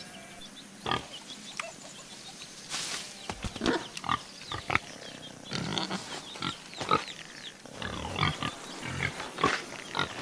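A run of short, irregular animal calls and clicks, several a second, some with a brief rise in pitch.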